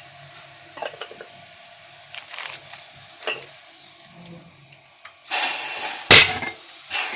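Knocks, clicks and scraping from tools and parts being handled during hands-on work on a ceiling fan, with a short rough scrape about five seconds in and one sharp, loud knock about six seconds in.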